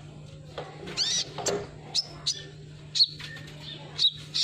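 Sunbird ('kolibri ninja') giving short, high, sharp chirps, about seven at irregular intervals, over a low steady hum.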